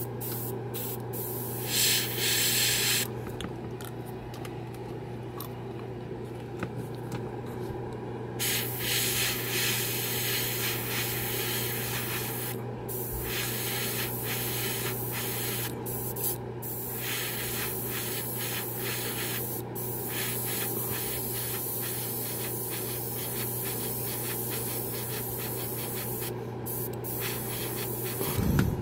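Airbrush spraying metallic paint in hissing bursts: one short burst about two seconds in, then long bursts of several seconds each with brief breaks. Under it runs the steady low hum of the air compressor.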